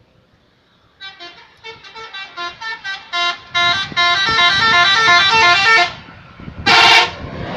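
Bus telolet horn, a multi-tone musical air horn, playing a long melody of quick stepped notes that grows louder as it goes. A short, louder horn blast follows near the end.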